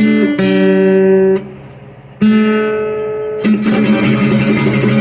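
Guitar music: strummed chords left to ring, a fresh chord struck about two seconds in, then busier strumming from about three and a half seconds in.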